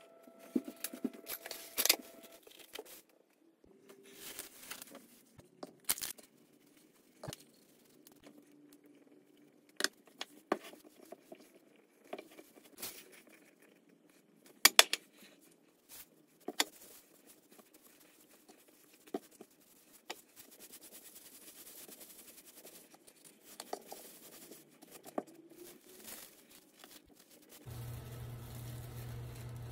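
Kitchen handling sounds: a glass bowl and bread dough being handled on a wooden board, with scattered sharp knocks and taps and cling film being pulled, torn and crinkled. A steady low hum comes on near the end.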